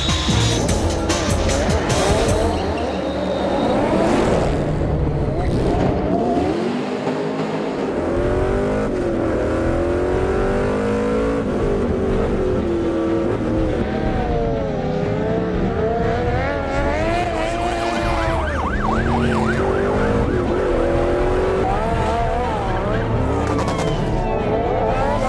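Motor-vehicle engines revving hard, their pitch rising and falling again and again, over background music.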